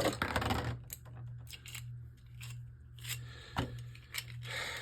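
Scattered light clicks and taps of hard plastic Beyblade parts and launcher being handled, irregular rather than rhythmic, over a steady low hum.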